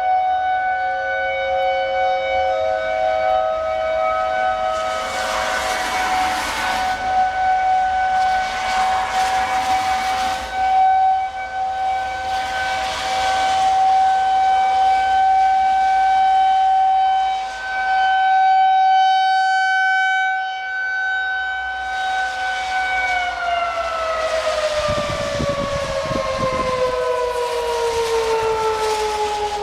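Single-tone outdoor tornado warning siren sounding a long steady note, then falling steadily in pitch as it winds down about 23 seconds in.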